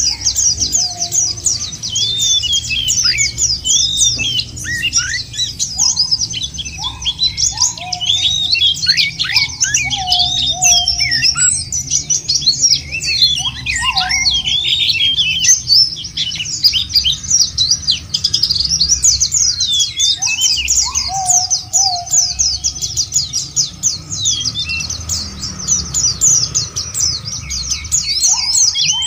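A chorus of white-eyes (pleci) twittering in fast, dense, high-pitched runs. Beneath them a lower call falls in pitch, repeating every second or two, over a steady low rumble.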